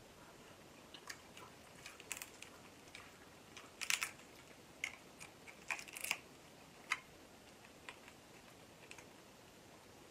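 Cooked king crab being pulled apart by hand: scattered sharp crackles and clicks of the shell and meat tearing, loudest in a few clusters in the middle, with quiet chewing.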